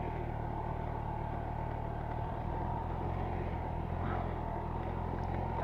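Honda Dio scooter's small engine running steadily on light throttle while being ridden slowly. The engine has developed a rattling knock.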